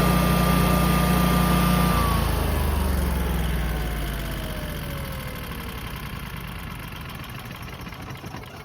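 Honeywell-branded Generac 22 kW Guardian standby generator engine running steadily, then shut off about two seconds in. Its pitch falls and it fades as the engine and alternator spin down to a stop after the warm-up run.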